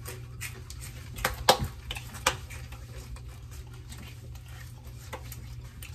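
Mouths crunching and chewing a spicy hot-challenge chip: a few sharp crunches, the loudest about a second and a half in, then fewer and quieter chewing sounds.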